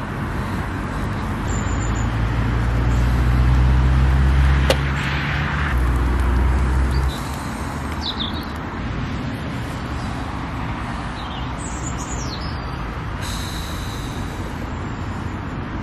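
Road traffic running steadily around the roundabout, with a low vehicle engine rumble that swells over the first few seconds and cuts off about seven seconds in. Small birds chirp a few times in the second half.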